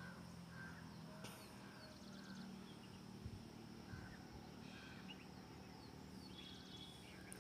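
Near silence: faint background hiss with a few short, faint high chirps scattered through it.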